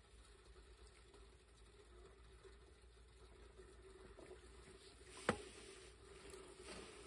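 Near silence broken by one sharp knock about five seconds in, of tableware being handled on a camp table, with a couple of fainter taps around it.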